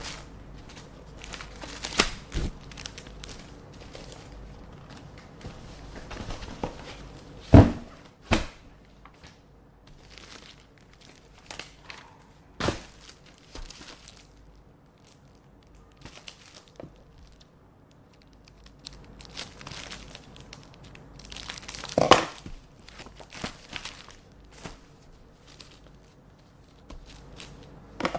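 Paper envelopes and letters rustling, crinkling and tearing as they are handled and opened with scissors, with scattered sharp clicks and a few louder knocks, the loudest about seven and a half and twenty-two seconds in.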